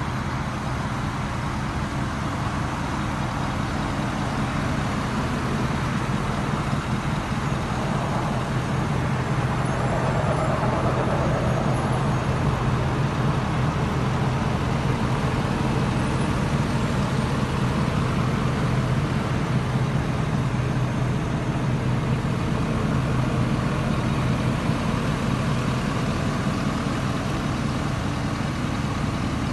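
Ford F-250 pickup's engine idling steadily, a low even hum.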